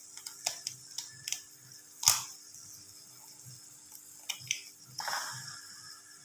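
A hen's egg being cracked over a steel frying pan: a few light clicks, then one sharp crack about two seconds in as the shell strikes. Near the end the shell is pulled apart and the egg drops into the oily onions with a short wet splash lasting about a second, over a faint steady hum.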